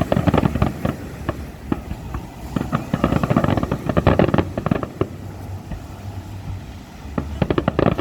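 Fireworks crackling: dense runs of rapid pops in bursts, one at the start, a longer one in the middle and another near the end.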